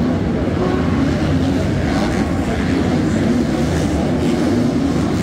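A pack of 250cc four-stroke supercross motorcycles running around a stadium dirt track, their engines overlapping in a loud, steady drone with notes shifting up and down in pitch as the riders work the throttle.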